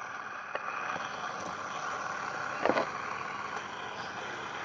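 Fidget spinners' ball bearings whirring steadily as they spin, with a couple of light clicks.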